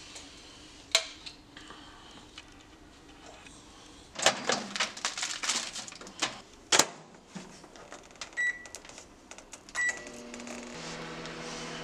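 Countertop microwave oven in use: clatter and rustling as food is put inside, the door shutting with a sharp click, two keypad beeps, then the oven starting up with a steady hum.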